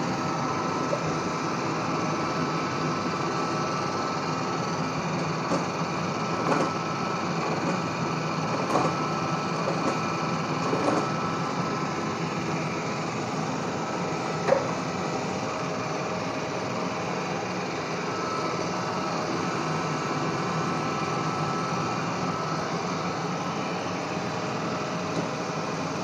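360 S7 robot vacuum running as it drives itself back onto its charging dock: a steady motor hum with a thin whine, broken by a few light knocks.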